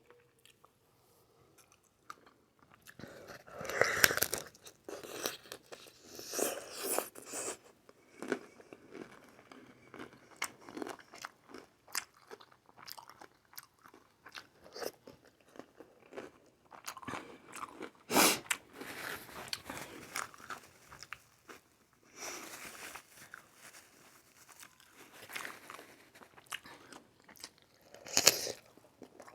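A person eating aguachile verde close to the microphone: crunchy bites and chewing. There are louder crunches about four seconds in, around eighteen seconds in, and just before the end.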